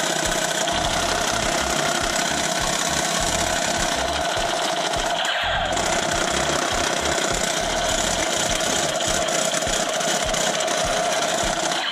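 Toy gun firing on full auto, a continuous fast rattle that runs without a break for about twelve seconds.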